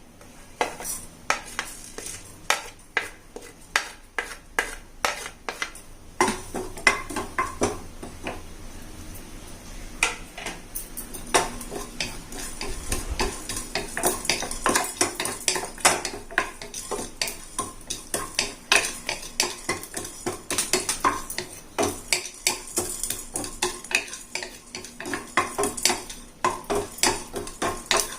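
A spoon stirring and scraping in a pan, with repeated taps and scrapes, as black peppercorns and cumin seeds are dry-roasted.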